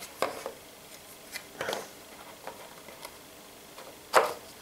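Light clicks and knocks of thin laser-cut MDF box panels being handled and set against one another on a wooden jig board, with one sharper knock about four seconds in.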